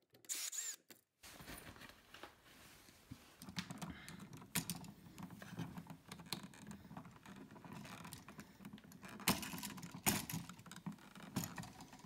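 A cordless drill/driver whirs briefly in the first second as it works a switch's terminal screw. After that come faint clicks, light rattles and scrapes as the metal-strapped wall switch and its wires are handled.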